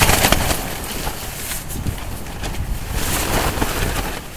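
Strong storm wind gusting against the microphone in uneven surges, with the red tent's fabric flapping and rustling in the wind.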